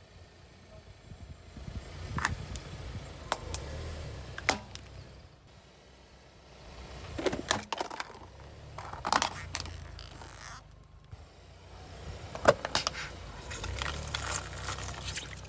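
A car tyre rolling slowly over asphalt with a low rumble, crushing small plastic objects with sharp cracks and snaps, in three passes.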